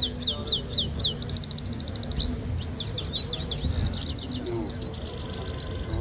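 Goldfinch song: a fast, unbroken string of high twittering notes, quick downward-sliding whistles mixed with buzzy trills.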